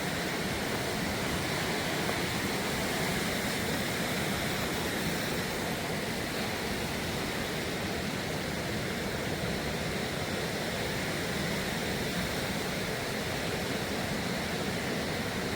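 Steady rushing of river water, an even noise that does not change.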